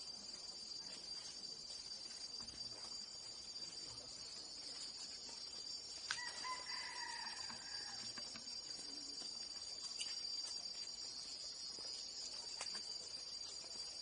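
Steady high-pitched drone of insects, with a single rooster crow about six seconds in, lasting around two seconds.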